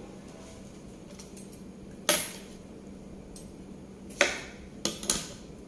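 Kitchen knife cutting through a cucumber and striking the table: four sharp knocks, one about two seconds in and three close together near the end.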